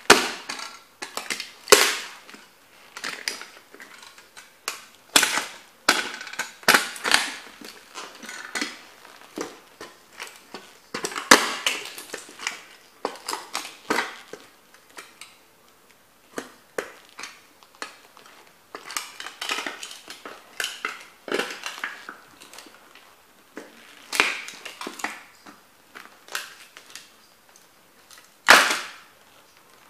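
Leather lace-up boots stomping on and grinding the broken pieces of a plastic toy car against a board, giving a string of sharp cracks, crunches and scrapes at uneven intervals. The loudest stomps come right at the start and near the end.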